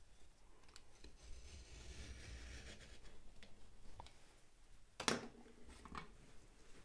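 Utility knife blade scoring the paper face of wallboard along a T-square: a faint scraping stroke lasting a couple of seconds. About five seconds in there is a single sharp knock.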